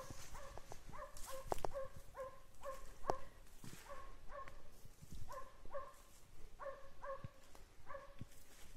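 Hound baying in short repeated calls, about two a second with a brief pause partway through: a dog giving tongue as it works a hare's trail. Crackling of undergrowth underfoot close by.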